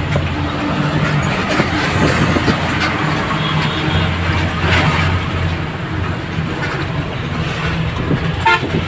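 Bus engine running steadily at highway speed, heard from inside the cabin, with a short horn toot near the end as it passes another bus.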